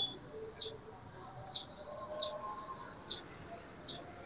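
A small bird chirping repeatedly: short, high chirps about once a second, with faint lower whistles in the background.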